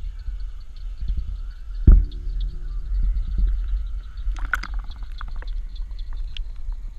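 Muffled rumbling and knocking of a GoPro in its waterproof housing as it is pushed down into shallow water. One loud knock comes about two seconds in, and a quick cluster of clicks a little after halfway.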